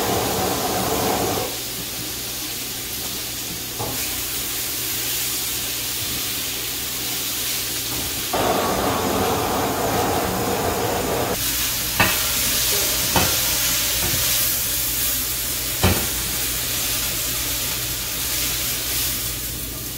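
Handheld gas torch hissing steadily as its flame is played over stir-fried greens in a hot pan, to give them a smoky wok hei flavour, with the greens sizzling. A few sharp knocks along the way.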